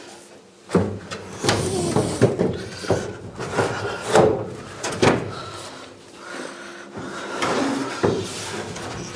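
Wooden decking boards being shifted and knocked into place on timber floor bearers: a run of irregular knocks, thuds and scrapes.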